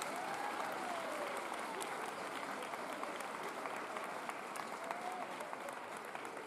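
Crowd applauding, a dense patter of many hands clapping, with a voice or two calling out faintly over it.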